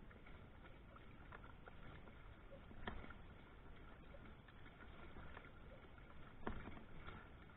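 Faint splashing and ticking from a pedal-driven kayak's rotating plastic paddle blades and crank as they churn the water. Two louder knocks, one about three seconds in and another about a second before the end.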